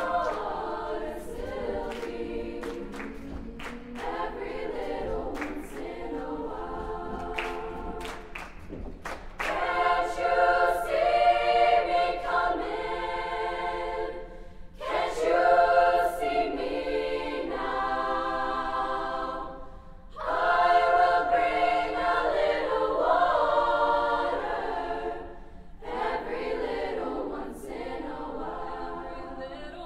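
Women's high-school choir singing a cappella in parts, with sharp body-percussion hits over the first several seconds. The singing swells louder about a third of the way in, breaks off briefly twice, and falls back softer near the end.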